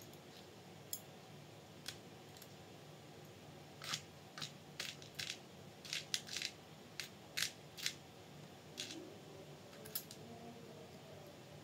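Irregular small metal clicks and clinks, about fifteen, bunched together in the middle: small bolts and nuts being picked up, handled and set down during chassis assembly. A faint steady hum runs underneath.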